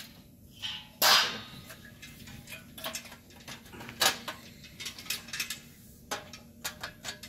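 Steel shelving parts knocking and clicking as a metal rail is fitted into the slotted uprights of a store shelving fixture, its tabs going into the notches. A sharp clank about a second in, then scattered lighter clicks and taps.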